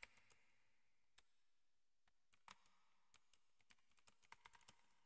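Faint typing on a computer keyboard: a few keystrokes at the start, a single one about a second in, then a quick run of keystrokes from about halfway through to near the end.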